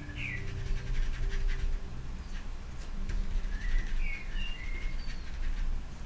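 A bird chirping: a few quick calls at the start and again around four seconds in. Faint scratching of a paintbrush on paper runs underneath, over low steady tones.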